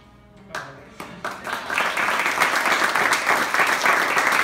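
A roomful of dinner guests applauding: a few scattered claps about half a second in, building within a second or so into full, steady applause.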